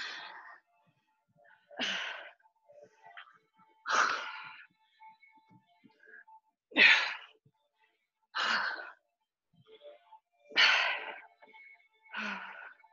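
A person breathing out hard and sharply about seven times, one forceful exhale every one and a half to two seconds, the breathing of someone straining through push-ups and single-leg knee drives.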